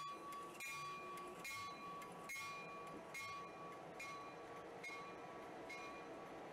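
Diesel locomotive's bell ringing in even strokes, about one a second, over the rumble of the passing locomotive.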